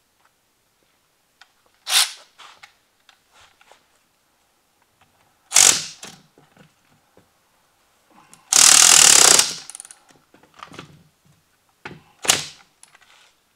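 Cordless ratchet run in short bursts on the alternator's pulley end. There are three brief runs and, about halfway through, one louder run of about a second, with light knocks of metal on concrete between them.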